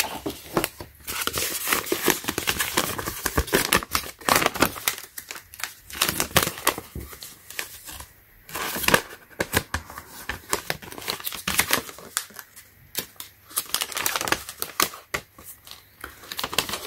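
Paper instruction sheets being handled and unfolded, rustling and crinkling irregularly.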